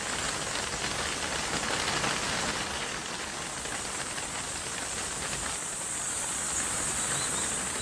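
Wingbeats of a vast swarm of bats streaming out over the forest: a dense, steady rushing flutter.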